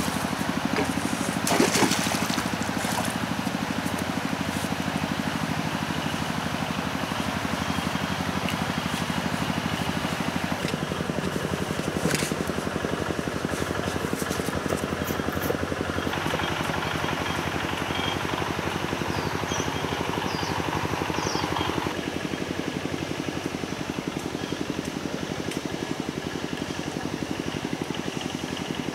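Small petrol-engine portable water pump running steadily, with water pouring and trickling. A couple of brief knocks, near the start and about midway.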